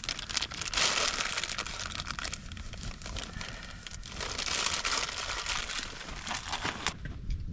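Rustling and crinkling of gear being handled as a lighter is put away, in several bursts with small clicks that die down near the end.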